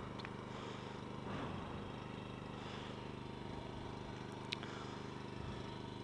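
Faint steady electrical hum, with a single light click about four and a half seconds in.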